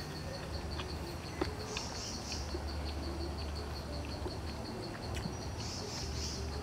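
Forest ambience: an insect chirping in a steady fast pulse of about five high beats a second, with two short bursts of higher chirps. A sharp click comes about a second and a half in, and a low rumble comes and goes.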